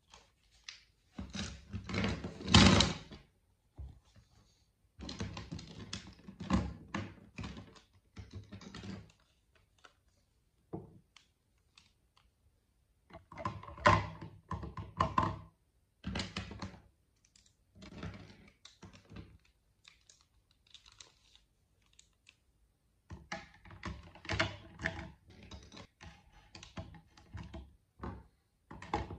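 Plastic markers and paint pens clicking and clattering against a clear plastic desk organizer and a hard desk top as they are sorted into it. The sound comes in bursts of quick knocks with pauses between, loudest about two to three seconds in.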